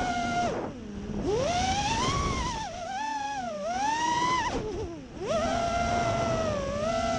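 Small quadcopter drone's electric motors and propellers whining, the pitch rising and falling with the throttle. The whine sinks low and briefly fades about a second in and again about five seconds in, then climbs back.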